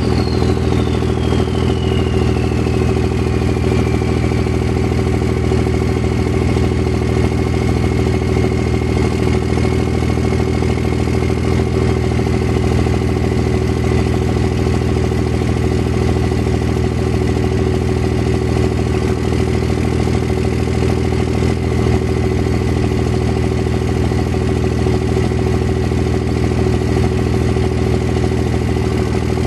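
A machine running steadily with a constant hum, and a high whine that glides down in pitch over the first few seconds and then holds steady.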